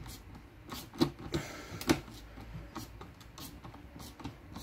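A hand screwdriver driving a screw into a Land Rover door-top window frame, making irregular small clicks and creaks, with sharper ticks about a second and two seconds in. The screw is binding and not going fully home.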